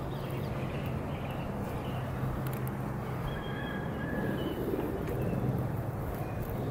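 Long fillet knife cutting along the scaly side of a monchong (sickle pomfret), under a steady low hum. A few brief high bird chirps come about three to four seconds in.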